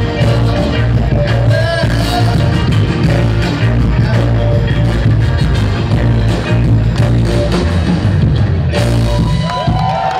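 Live Philly soul: a male vocal group singing over a band with a strong, steady bass line, played loud. Near the end the song closes and shouts from the audience come in.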